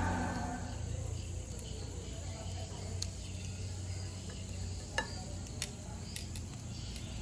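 Steady high insect trilling over a low hum, with a few sharp clicks of metal tongs against the grill grate and the plate as the grilled duck is lifted off the charcoal; the loudest two clicks come about five seconds in, half a second apart.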